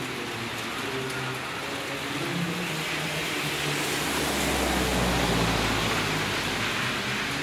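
Steady rain falling on a wet street while a small van drives past: its engine and the hiss of tyres on the wet road swell to a peak about five seconds in, then fade.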